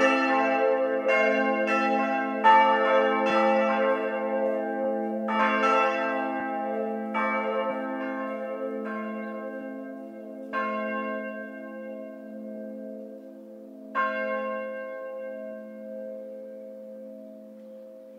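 Church bells ringing in peal: strikes come quickly and overlap at first, then thin out to single strokes about ten and fourteen seconds in, while the lingering hum of the bells fades as the ringing dies down.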